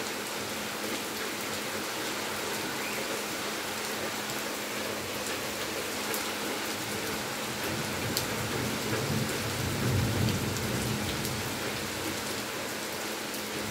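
Heavy rain falling steadily, splashing into standing water on a flooded yard, with a low rumble swelling and fading about ten seconds in.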